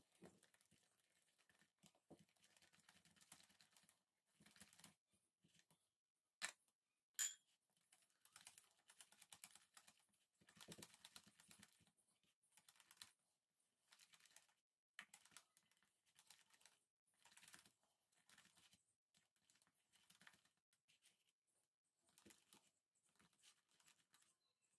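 Near silence with faint, irregular light clicks and short scrapes, the two sharpest about six and seven seconds in.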